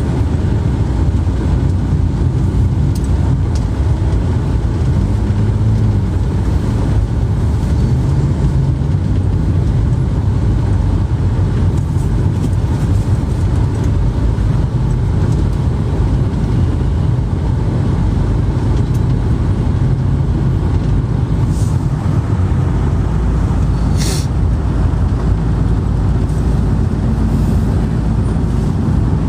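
Steady low rumble of a vehicle in motion, like road and engine noise heard from inside a car. There is one brief click about 24 seconds in.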